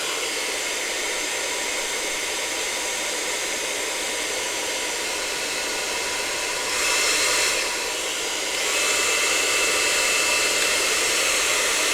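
GHD Helios hairdryer running with a steady rushing whoosh of air, growing louder for about a second around seven seconds in and again from about nine seconds in. It is working again now that its blown 3 amp plug fuse has been replaced with a 13 amp one.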